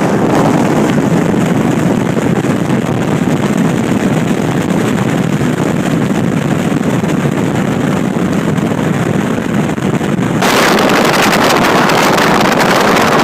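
Heavy wind noise buffeting a phone microphone aboard a bass boat running at speed. About ten seconds in it turns suddenly harsher and hissier.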